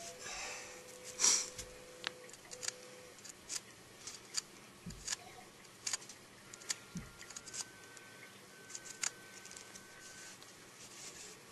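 A hollowed goldenrod gall and small bits of plant matter handled by hand, giving scattered light clicks and taps, with a brief scraping rustle about a second in.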